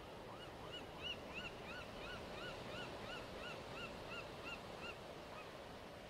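A bird calling in a run of about fifteen short, rising-and-falling notes, about three a second, fading near the end, over a steady rush of wind and surf.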